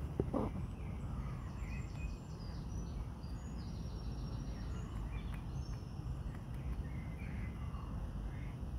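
Outdoor ambience: a steady low rumble with faint bird chirps, and one short thump just after the start.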